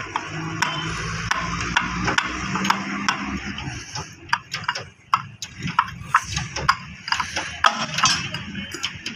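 Sharp metallic taps and clinks at irregular intervals as the steel end ring of a concrete pipe mould is knocked loose with a hand tool.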